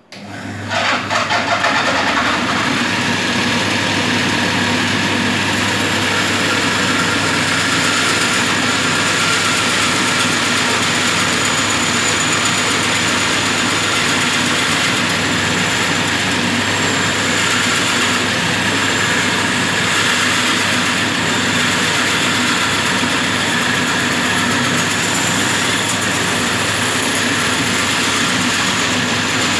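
Homemade wooden bandsaw switched on, spinning up to speed within about two seconds, then running steadily while a wooden board is fed through the blade.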